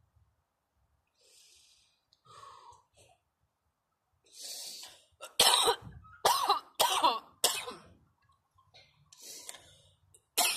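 A woman coughing from bong smoke: a few breathy exhales, then a run of four coughs about half a second apart, and another run of coughs starting near the end.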